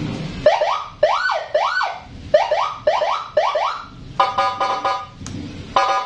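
Custom Senken patwal (escort) siren sounding in short mode: quick rising-and-falling whoops, one after another, coming faster after about two seconds. About four seconds in it switches to a steady pulsing tone.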